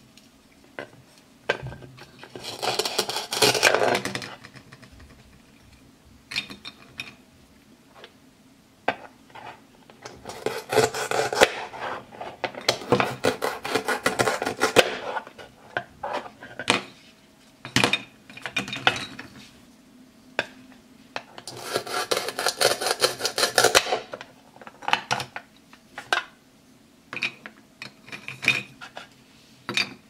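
Plastic toy vegetables being cut apart at their velcro joins with a toy knife: three long raspy velcro tears, a few seconds apart, with plastic pieces clicking and knocking on a plastic cutting board and plate in between.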